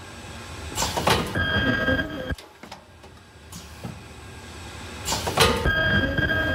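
Automatic monodose strip-tube filler's five-head ceramic pump filling station working through two cycles about four seconds apart. Each cycle is a rush of mechanical noise followed by a steady whine about a second long that stops abruptly.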